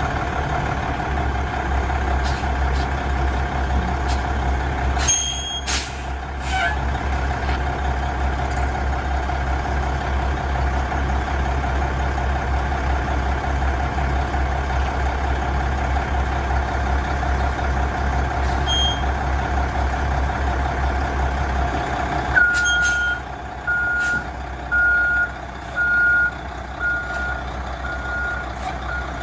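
1993 Ford LS8000F diesel dump truck engine idling steadily, with a few short sharp sounds about five seconds in. Around twenty-two seconds in the engine note changes and the reverse-gear backup alarm starts, beeping about once a second.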